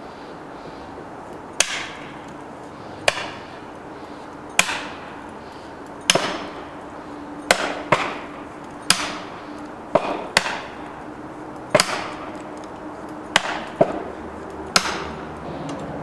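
Felling wedges being driven into a tree's back cut by hammer blows: about a dozen sharp strikes, roughly one every second or so with a few quick doubles, each ringing briefly.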